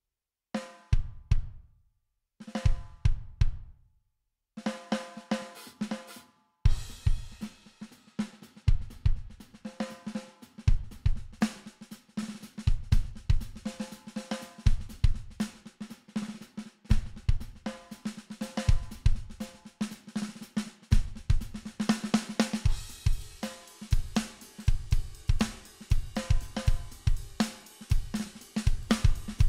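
Sampled drum kit playing a rock groove of kick, snare, hi-hats and cymbals, run through guitar-amp, preamp and pedal plugins for a saturated, coloured tone, with a pitched ring on the hits. It starts and stops twice in the first few seconds, then plays on continuously, with the hi-hats and cymbals brighter in the last quarter.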